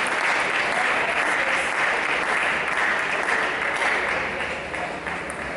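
Spectators applauding at the end of a rally in a table tennis match: steady, dense clapping that eases off near the end.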